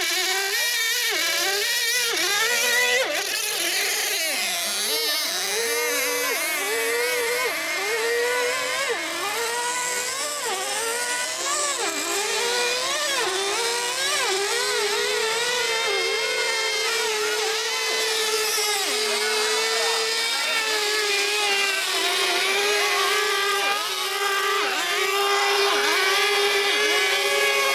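Small nitro-fuelled outboard engines of radio-controlled racing boats running at high revs. Their pitch swings up and down every second or so as the boats throttle and pass, then holds a steadier high whine in the second half.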